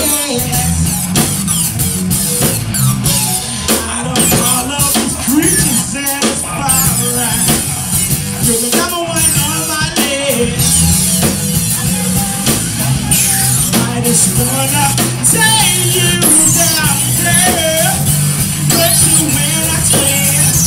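Rock band playing live: drum kit and electric guitar, loud and continuous.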